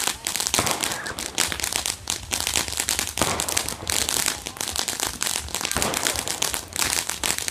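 Consumer firework crackling: a dense, rapid rattle of small pops that goes on unbroken, with a few sharper bangs scattered through it.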